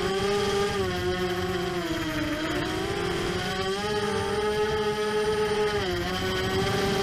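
Brushless motors and propellers of an ImmersionRC Vortex 250 Pro racing quadcopter whining in flight. The pitch sags about two seconds in, recovers, then dips briefly near the end as the throttle changes.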